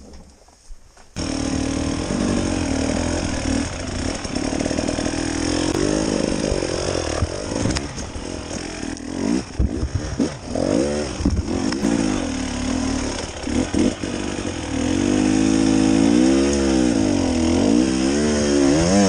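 Off-road dirt bike engine firing up about a second in, then running and revving up and down as the bike is ridden along a rough trail, with the revs climbing and falling repeatedly near the end.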